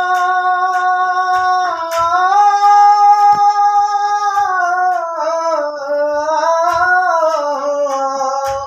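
A singer holds one long, unbroken note through a ghazal line, bending the pitch up about two seconds in and sliding it down and back up through the second half. Soft low knocks sound now and then underneath.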